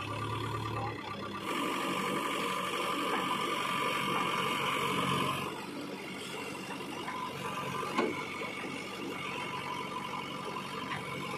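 JCB 3DX backhoe loader's diesel engine running with its hydraulics working, louder and with a higher whine for a few seconds early on before settling back to a steadier run. A single sharp knock about eight seconds in.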